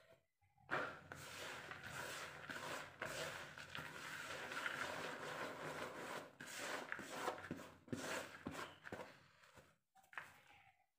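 A hand rubbing and scooping a crumbly rice flour mixture in a plastic basin: a gritty rustling scrape with small crackles. It starts just under a second in and breaks off briefly shortly before the end.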